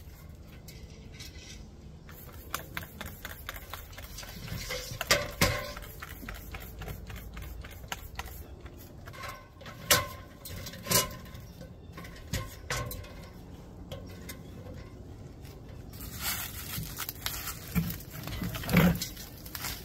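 Hand-held spray bottle squirting soapy water up at a hornet nest under an eave: scattered clicks and short squirts, with a run of longer hissing sprays near the end.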